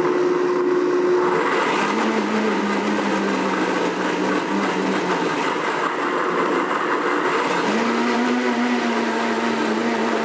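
Blendtec blender motor running at high speed, mixing a thick batter of eggs, flour and sugar. Its pitch drops about a second and a half in and steps up again near the end.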